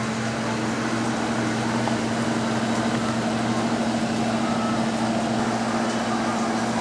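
A small electric centrifugal blower fan running with a steady hum over background shop noise.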